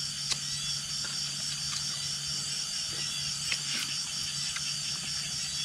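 Cricket chirping in a steady, rapid high-pitched pulse, about five pulses a second, over a low steady hum, with a few faint clicks.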